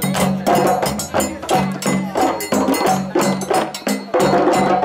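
A group of djembes played together by hand in a fast, steady, interlocking rhythm, with deep bass tones under many sharp slaps.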